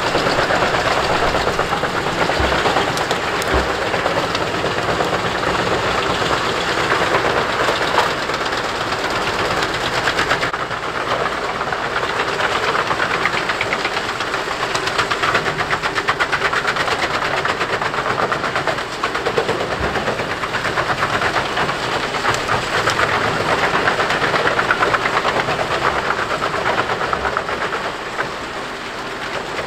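Jenz HEM 593 Cobra truck-mounted wood chipper running under load, its spiked infeed rollers drawing in tree trunks and pine branches while the wood is chipped with a continuous dense crackling clatter over the machine's engine.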